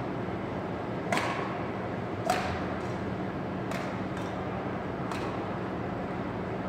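Badminton rackets hitting a shuttlecock during a rally: a string of sharp, short pings, the two loudest about one and two seconds in, over a steady low hum.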